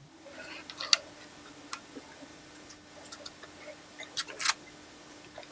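Scattered light clicks and taps of hard plastic parts being handled and fitted onto the aluminium frame feet of an iKier K1 laser engraver, a few sharper ones about a second in and around four seconds, over a faint steady hum.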